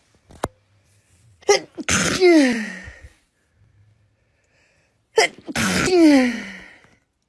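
A woman sneezing twice, about four seconds apart. Each is a quick sharp catch of breath followed by a loud sneeze whose voice falls in pitch as it fades.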